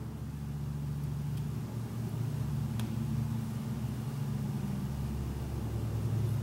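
Steady low machine hum from shop equipment, with a few faint clicks from hands working at the lathe's pilot-light sockets.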